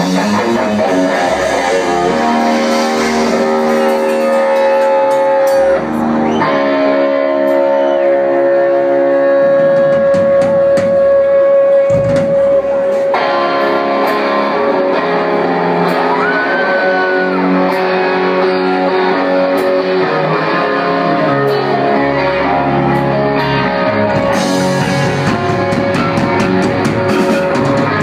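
Live rock band playing, with electric guitar and bass guitar. A long note is held through the middle, and a note is bent upward a little later.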